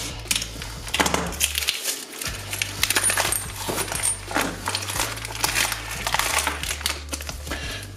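Plastic blister packaging crackling and tearing as it is opened by hand, with small metal parts (bolts, washers and a bracket) clinking against each other and the wooden workbench in quick, irregular clicks.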